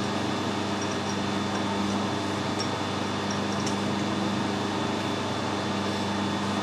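Steady machine hum, an even drone with a few constant tones and no change in pitch or level. A few faint light ticks sit on top of it.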